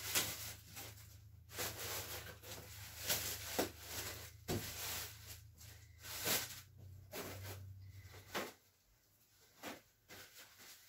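Scattered rustles, clicks and knocks of someone handling things out of view, over a low steady hum that stops about eight and a half seconds in.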